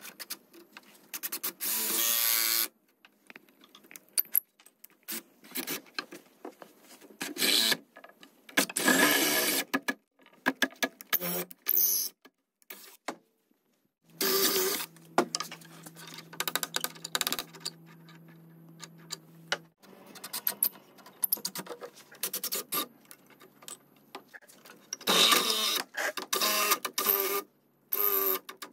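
Cordless drill boring into a hardwood table leg, run in short bursts with pauses between. The longest run comes about halfway through and lasts about five seconds, the bit cutting through the wood.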